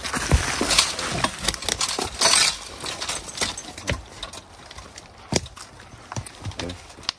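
Belgian draft horse team moving through snowy brush: irregular hoof falls, crunching and knocking, with a louder rustling rush about two seconds in.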